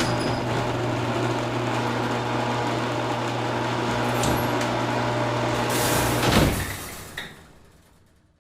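Door sound effect: a steady mechanical hum, a louder rushing swell about six seconds in, a short click just after, then it fades away.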